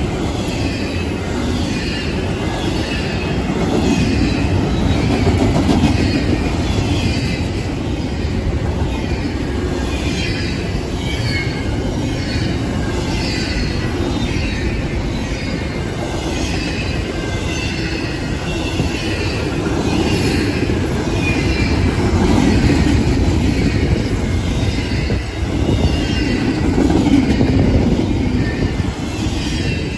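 Long intermodal freight train's cars passing close at speed: a steady rumble of wheels on rail, with short high-pitched wheel squeals recurring about once a second.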